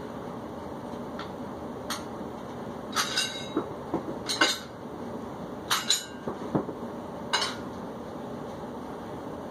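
Metal weights clinking and knocking against each other as they are handled: a scattering of sharp metallic clinks, most of them in the middle few seconds, over a steady background hum.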